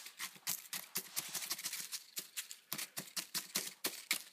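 Kitchen knife sawing through charred carrot and onion on a sheet of cardboard: quick scratchy strokes, several a second.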